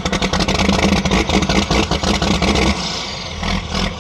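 An engine running close by, with a fast clatter over a steady hum; the low part of the sound drops and the note changes about three-quarters of the way through.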